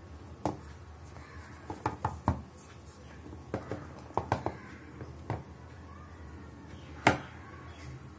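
Cardboard iPhone 6s Plus box being handled as its lid is worked off: a string of light knocks and taps against the table, the loudest about seven seconds in.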